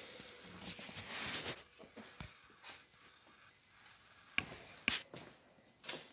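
Faint rustling and scuffing of someone moving about, with a few light clicks and taps.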